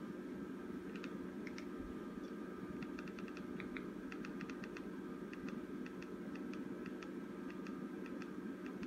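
Remote-control buttons clicking in quick runs of presses as the channel list is scrolled, over a steady low hum.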